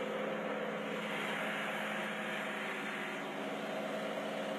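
Tractor engine running at a steady speed, a constant drone with a steady hiss over it.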